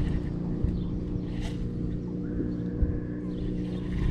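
Boat motor humming steadily, with wind rumbling on the microphone.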